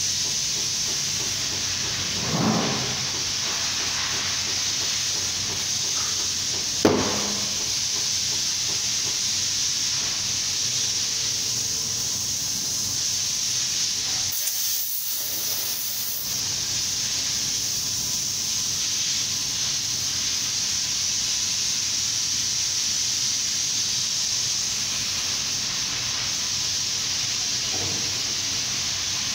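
Steady hiss of compressed air at a tyre-changing machine, with two short knocks, about two and a half and seven seconds in.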